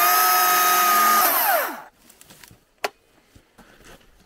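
Electric power saw, likely the saw for cutting the dead tree into a log, spinning up, running at a steady high whine for about a second and a half, then winding down and stopping about two seconds in. A single sharp click follows about a second later.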